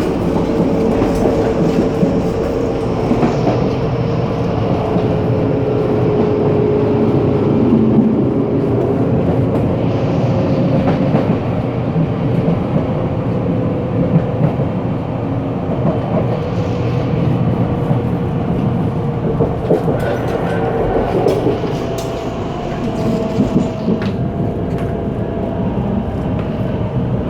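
Puyuma Express (TEMU2000 tilting electric train) heard at the gangway between carriages while running: a continuous loud rumble of wheels on rail with scattered clicks and rattles, and a steady whine that sits a little higher after about twenty seconds.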